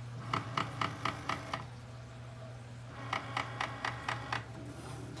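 Cricut Maker cutting machine working through a fabric cut: a steady low hum with two runs of quick, even clicking, about five clicks a second, one soon after the start and one in the second half.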